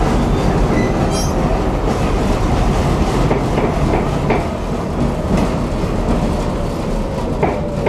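Tram running along its track, heard from on board: a steady rumble of wheels on rails with several sharp clicks as the wheels pass over the track. A faint whine slowly falls in pitch.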